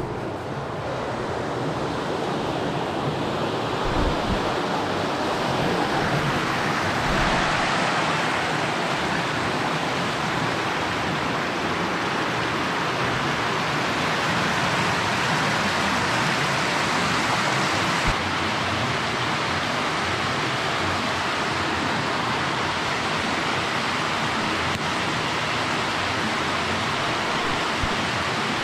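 Steady rush of cascading water, an even hiss that grows slightly fuller about seven seconds in.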